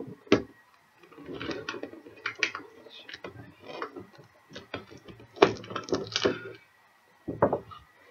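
Cardboard box with a clear plastic window being handled and opened by hand: irregular clicks, taps and knocks with rustling and scraping of the cardboard flaps, briefly stopping about a second in and again around seven seconds.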